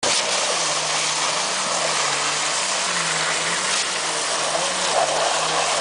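Concrete boom pump running steadily while pumping concrete through its end hose: a constant engine hum with a hiss over it.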